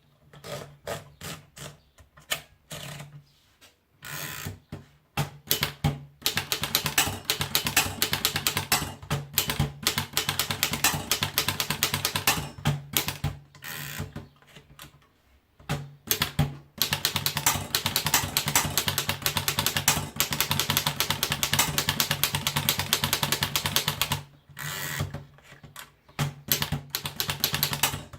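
Erika Model S manual typewriter being typed on: a few separate keystrokes, then two long runs of fast typing with short pauses between them.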